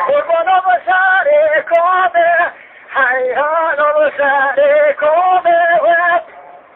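A man singing a kaside, a religious hymn, in long ornamented phrases whose pitch wavers and bends, with a short breath about two and a half seconds in; the singing stops about six seconds in.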